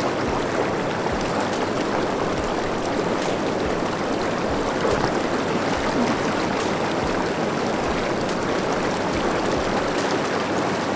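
Lay-Z-Spa Hawaii Hydrojet Pro inflatable hot tub running its air-bubble system and hydro jets together at full power: a steady rush of bubbling, agitated water.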